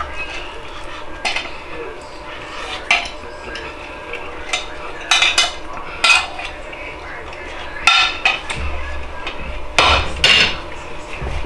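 Metal fork and spoon clinking and scraping on a ceramic plate: several short, sharp clicks at irregular intervals.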